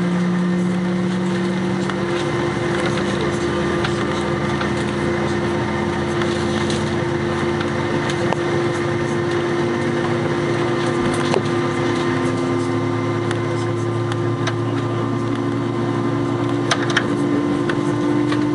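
Airbus A321 cabin noise while taxiing, heard from a seat over the wing: the jet engines running at low power with a steady hum and a low tone that slowly rises in pitch. A few faint clicks and rattles come near the end.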